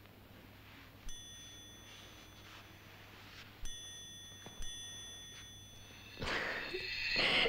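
A click, then a steady high ringing tone that holds for several seconds and sets in again more strongly after two more clicks. Near the end comes a louder rustling, breathy noise.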